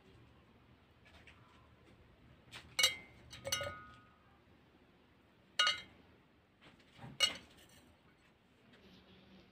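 Steel spoon clinking against a glass mug while ingredients are spooned in: about four sharp clinks with a brief ring, plus a few lighter taps.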